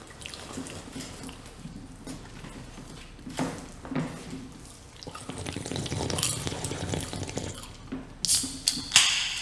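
Water splashing and dripping with small clinks of dishes or utensils. The sound swells in the middle and ends in a few sharp, bright clinks.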